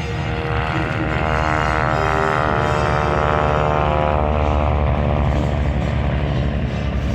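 Vintage biplanes' engines and propellers running at takeoff power as the formation passes, a loud steady drone whose pitch slides down through the middle as the aircraft go by.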